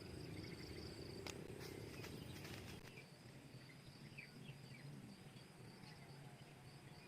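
Faint insects chirping steadily in a high, pulsing trill, with a few brief bird chirps.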